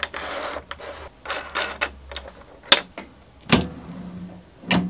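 Metal flip stop blocks being slid along a drill press table's T-track fence and their 5 mm acrylic flip pieces knocked into place: a short scrape at the start, small ticks, then three sharp plastic-on-metal clacks in the second half.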